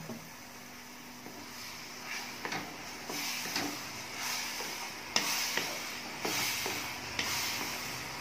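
Wooden spatula stirring and pressing thick mashed banana cooking in ghee in a nonstick kadai for halwa. It gives a wet scraping and sizzling that swells with each stroke, about twice a second, with light knocks of the spatula against the pan. The strokes grow louder from about two seconds in.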